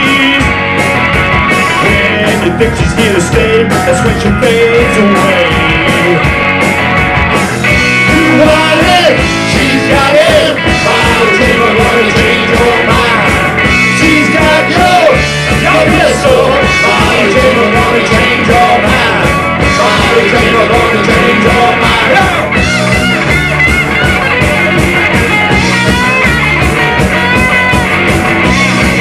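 Live rock band playing an instrumental break: electric guitars and drum kit, with a lead guitar line bending up and down over the rhythm.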